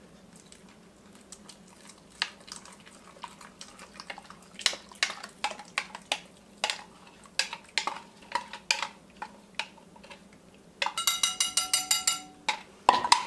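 Wire whisk clinking against the side of a mixing bowl while a flour slurry is stirred into hot milk to thicken it: scattered taps at first, then a quick run of fast whisking with the bowl ringing about eleven seconds in, and one louder knock near the end.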